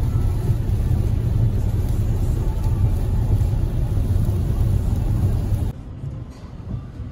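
Car cabin noise while driving on a wet highway in heavy rain: a steady low rumble of tyres and engine with a hiss of rain and spray over it. It cuts off abruptly about six seconds in, leaving a fainter sound with a few light clicks.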